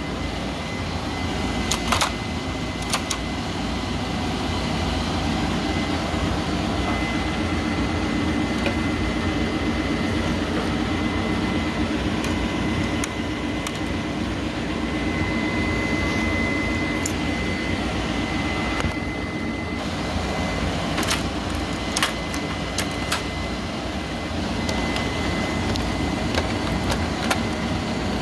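Steady machine hum with a faint high whine, broken by a handful of sharp clicks and knocks as plastic and metal parts inside an Epson printer are handled.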